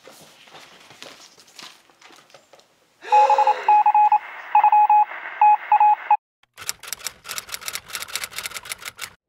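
Faint clicking, then an electronic telephone tone beeping on and off in short pulses for about three seconds. After a brief gap comes a rapid run of sharp typing clicks, about five a second.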